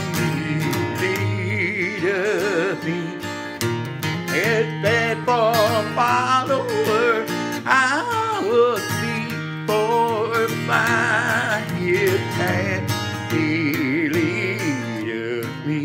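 An acoustic guitar with a capo is strummed steadily in a country-style hymn accompaniment, with a solo voice carrying the melody over it with a wide vibrato.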